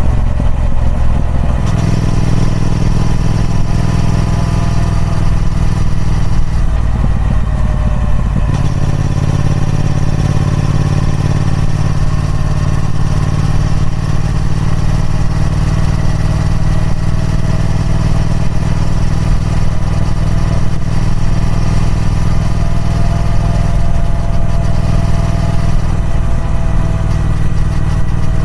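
Triumph Speed Twin 1200's 1200 cc parallel-twin engine running through its stock exhaust. The note shifts a couple of times in the first nine seconds, then holds nearly steady for the rest.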